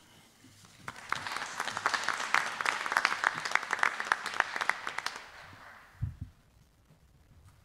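Applause from a small group, hand clapping that starts about a second in, runs for about four seconds and dies away. A single low thump comes just after it.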